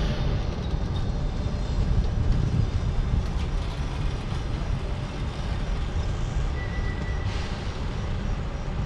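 Passenger train coaches rolling slowly out of the station on the next track, their wheels making a steady low rumble on the rails. A brief high squeal comes about six and a half seconds in.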